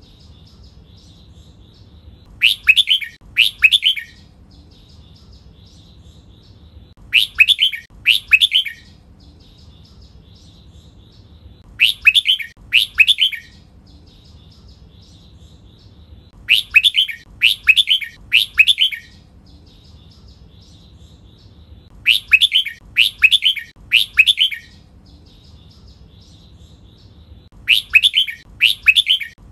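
Red-whiskered bulbul singing its doubled training song. A short, loud phrase is given two or three times in quick succession, and the cluster recurs about every five seconds, six times in all. A faint high chirping runs underneath between the phrases.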